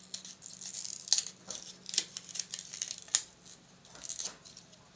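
A DVD being split into its two plastic layers, the disc crackling with irregular sharp snaps as the layers pry apart.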